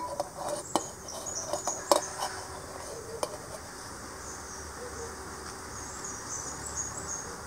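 Steel plate clinking and tapping against a steel mixer-grinder jar as grated coconut is scraped into it, a cluster of sharp clicks in the first three seconds or so. High chirping carries on in the background throughout.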